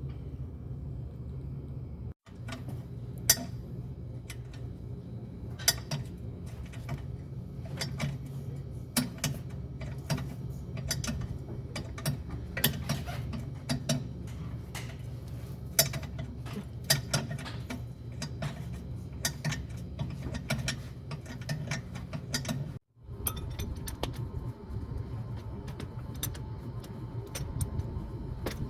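Hand tools working on a car: scattered metallic clicks and clanks, like a ratchet wrench and tools against metal, over a steady low hum. The sound drops out briefly twice.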